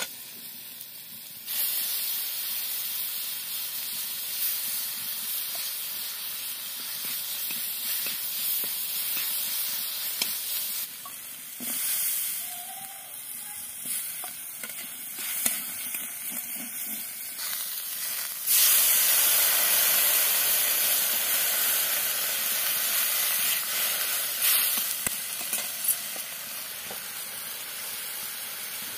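Hot oil sizzling in a metal kadai as dried fish and cut okra fry over a wood fire. The sizzle grows louder about a second and a half in and again about halfway through.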